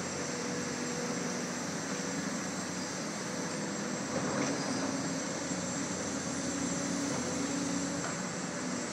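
Diesel excavator engines running steadily, with a faint knock about four and a half seconds in.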